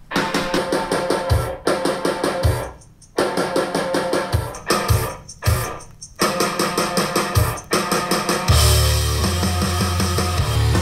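Rock music with drums and guitar played back through a pair of Estonia hi-fi loudspeakers and picked up in the room, broken by a few short gaps. About eight seconds in, a heavier section with loud, steady bass starts.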